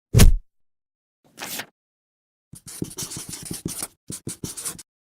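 A heavy thump, then a short brushing sound, then about two seconds of quick scratching and rubbing strokes.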